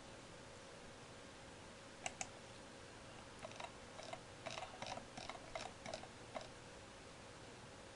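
Typing on a computer keyboard: two clicks about two seconds in, then a quick run of keystrokes lasting about three seconds, over a faint steady hum.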